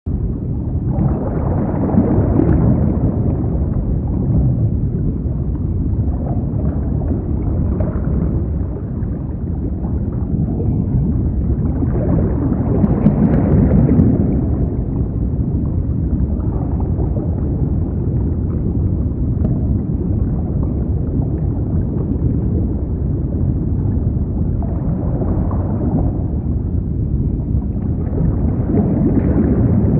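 Muffled underwater ambience: a steady low rumble of moving water that swells and subsides every several seconds.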